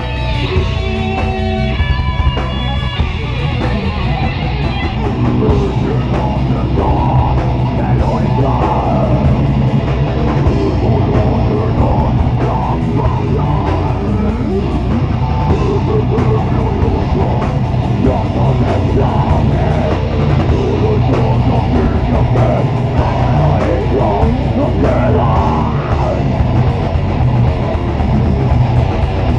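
Heavy metal band playing live at full volume: distorted electric guitars, bass and drum kit. A run of single guitar notes stands out over the band in the first few seconds before the dense full-band sound takes over.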